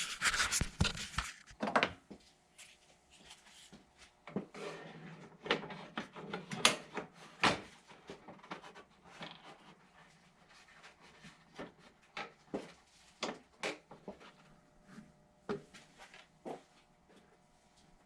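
Irregular clicks, knocks and rustling of hands working parts of a car's pop-up headlight assembly as the headlight housing is fitted back on.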